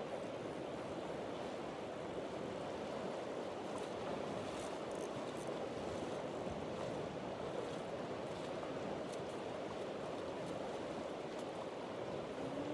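Steady rush of river water flowing over rocks, a constant even noise.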